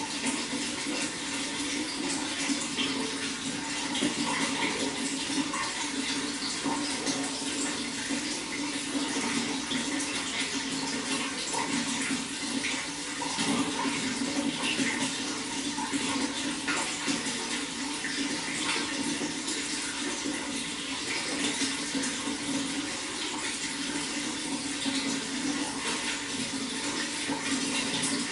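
Running water flowing steadily and continuously.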